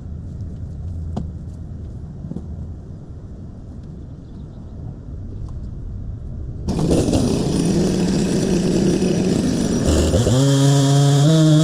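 A low engine rumble, then about two-thirds in a chainsaw comes in loud, and near the end its engine revs up to a steady high whine.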